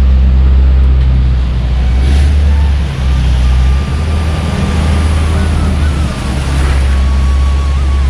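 City street traffic: a steady, loud low rumble of passing vehicles, with faint thin tones drifting over it in the second half.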